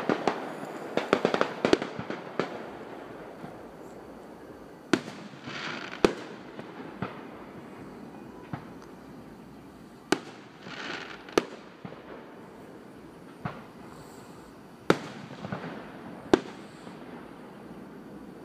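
Aerial fireworks shells bursting: a rapid cluster of bangs and crackles in the first couple of seconds, then single sharp bangs every second or two, a few of them followed by a brief crackling hiss.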